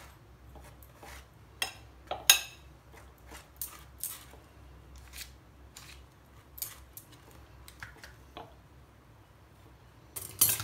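Table knife scraping and clicking against a glass dish while spreading butter over a pizza base: irregular light clicks and scrapes, the sharpest about two seconds in, with louder clinks near the end.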